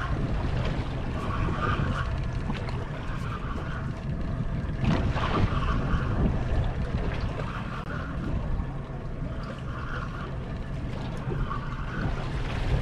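Wind buffeting the microphone over the wash of water against the hull of a drifting boat.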